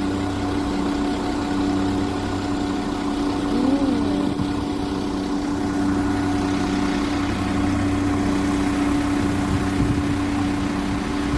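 West Midlands Railway diesel multiple unit idling at the platform, its underfloor engine giving a steady, unchanging hum.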